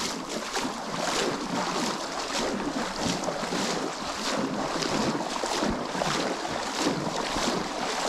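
Legs wading through a shallow muddy river, water sloshing and splashing with each stride, about two steps a second, over a steady wash of water.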